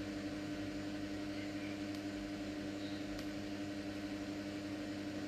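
Steady low hum of an electric fan motor running, one fixed tone with fainter tones beneath it, with a couple of faint ticks.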